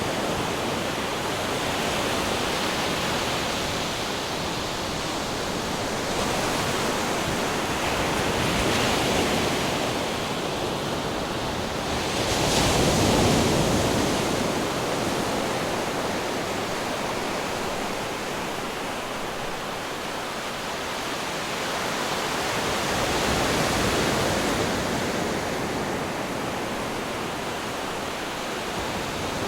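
Ocean waves breaking against rocks: a continuous wash of surf that swells and falls, with the biggest wave hitting about halfway through.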